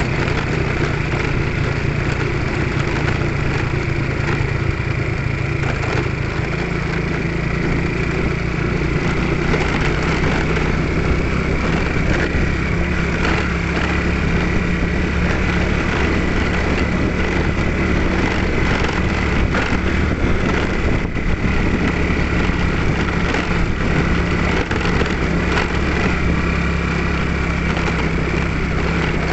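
A vehicle engine running steadily while under way, its pitch stepping up slightly about six seconds in.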